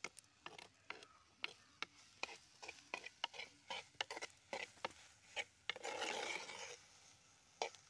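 Steel spoon stirring sliced onions in a clay cooking pot, scraping and knocking against the pot's inside in quick irregular strokes, with a longer, denser scrape about six seconds in.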